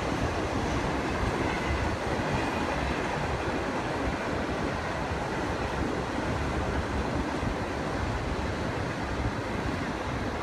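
Train of passenger coaches behind an HXD3D electric locomotive running quickly across an elevated rail viaduct: a steady, continuous rumble of wheels on track, easing slightly near the end.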